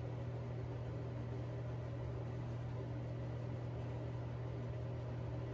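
Steady low hum with a faint even hiss: the room's constant background drone.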